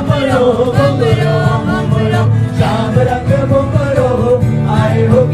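Live singing with an acoustic guitar strummed alongside: one melody line sung over steady guitar accompaniment.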